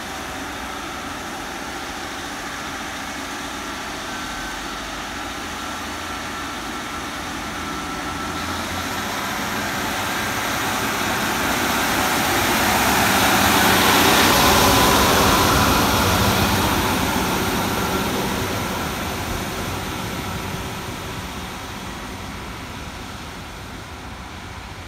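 Class 153 single-car diesel multiple unit with a Cummins diesel engine running past on the line: engine and running noise steady at first, swelling to loudest about halfway through as it goes by, then fading as it draws away. A thin high tone joins about a third of the way in.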